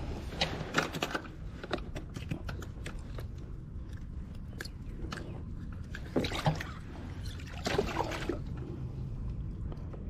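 Small water splashes and drips at the side of a plastic fishing kayak as a freshly caught crappie is handled in the water, with many small scattered clicks and knocks of fishing gear being handled; a few short louder splashes or knocks come about six and eight seconds in.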